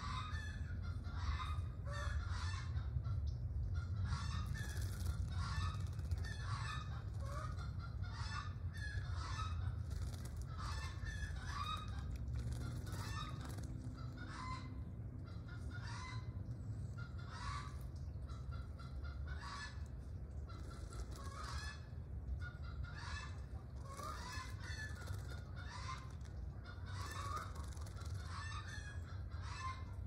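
Birds calling over and over in short repeated calls, roughly one or two a second, over a steady low rumble.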